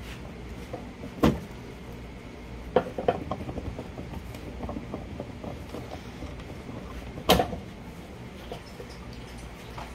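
Sharp clicks and knocks of hands working a transmission cooler line loose from its fitting and clips, the two loudest about a second in and near the end, over a steady low hum.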